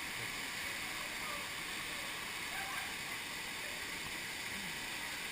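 Steady rushing of a waterfall, an even wash of falling water with no breaks.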